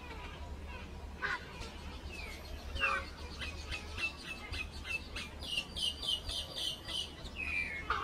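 Common myna singing: a few harsh calls sliding down in pitch, then from about three and a half seconds a fast run of short repeated notes, about three a second, ending in a falling note near the end.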